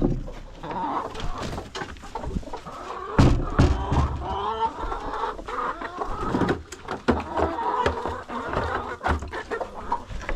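Chickens clucking continuously, with several loud knocks in among the calls.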